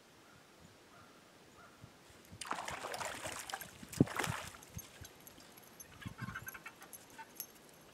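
Stream water splashing and sloshing for about two seconds, with one sharp knock in the middle, followed by a few faint clicks.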